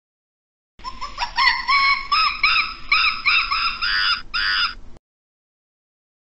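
A primate calling: a rapid series of loud, high whooping notes, each rising and falling in pitch, about three a second, with the last few notes trilled. It starts about a second in and cuts off suddenly about five seconds in.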